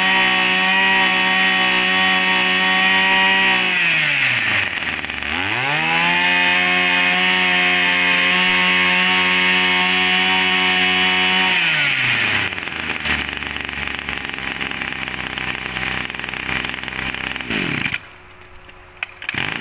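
Echo backpack brush cutter's 25cc two-stroke engine being test-run at high revs. About 4 s in it drops toward idle and revs straight back up, and about 12 s in it is throttled back to a lower running speed.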